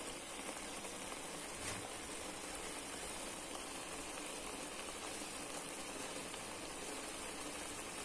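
Broth boiling in a wok, with a steady bubbling hiss.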